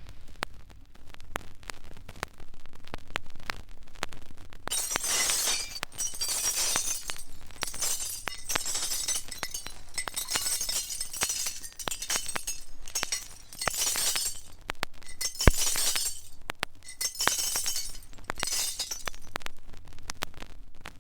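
Glass shattering: several crashes of breaking glass, each trailing into clinking, tinkling shards, with scattered clinks between them and one sharp crack about two-thirds of the way through.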